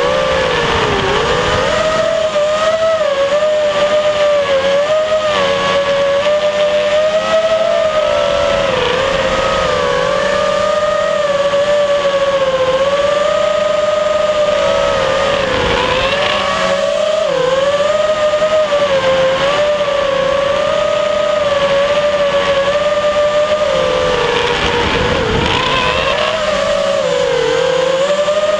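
FPV racing quadcopter's electric motors and propellers whining, recorded from the onboard camera. The pitch wavers up and down with the throttle and dips briefly several times, over a steady hiss.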